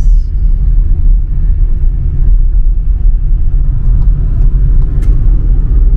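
Steady low rumble of a car driving at speed on a highway, heard from inside the cabin.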